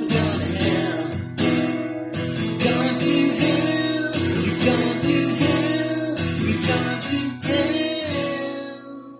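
Acoustic guitar strummed in a steady rhythm through an instrumental break in a cellphone-recorded song demo; near the end the last chord rings out and fades away.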